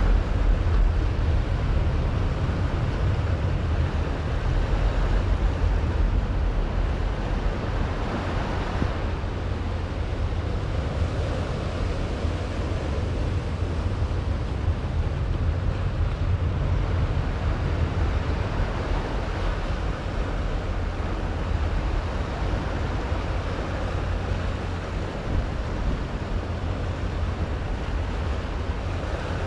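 Waves surging and breaking over a rock shelf, the wash swelling and easing every few seconds, with wind buffeting the microphone as a steady low rumble.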